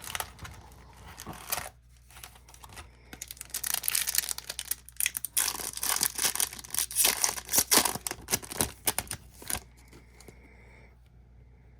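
Foil wrapper of a Topps Chrome trading-card pack being torn open and crinkled by hand. There is a short burst at the start, then dense crackling from about three seconds in until near the end.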